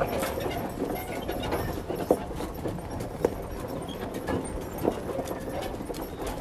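Open tour wagon rolling over a rough track: a steady rumble and rattle, with a few sharp knocks about two, three and five seconds in.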